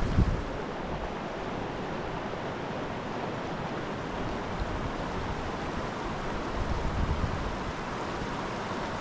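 Creek water flowing steadily, an even rushing hiss, with brief low rumbles near the start and about seven seconds in.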